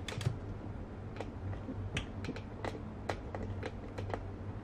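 Fingernails clicking against the glass back of a OnePlus 6 smartphone while picking at its protective film, in scattered sharp ticks. A low steady hum lies underneath.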